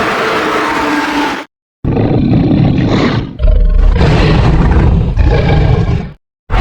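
Creature roar sound effects, one after another. A short roar cuts off abruptly about a second and a half in, then two longer, deeper roars follow, each ending in a sudden cut to silence.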